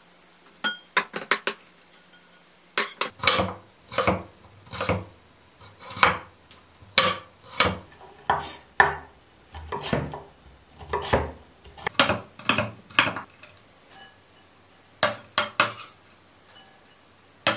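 Kitchen knife cutting carrot strips on a wooden cutting board: separate chopping strokes about one or two a second, with a short pause near the end. A few light clicks near the start come from chopped chives being scraped into a glass bowl.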